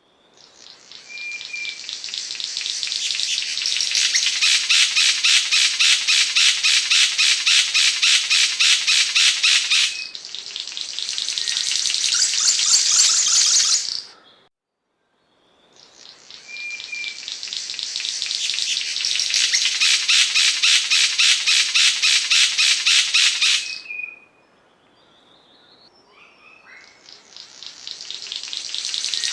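Cendrawasih panji song: a loud, rapid pulsing trill of high, repeated notes that swells up over a few seconds, holds steady, then stops. It comes in bouts, with a short break about halfway through, a quieter spell after, and a new bout building near the end.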